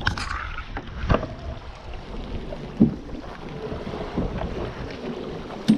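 Wind buffeting the microphone, with a few short knocks from handling the plastic fishing kayak and its fittings.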